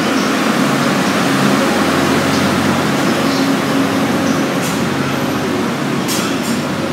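Cassiopeia sleeper train and its electric locomotive moving slowly through the station: a steady rumble with a low hum, and a few short high hisses a little after the middle.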